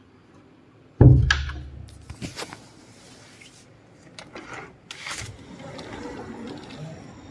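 A loud bump about a second in, then clicks, knocks and rubbing as a glass balcony door is unlatched and slid open. A steady background hum rises near the end.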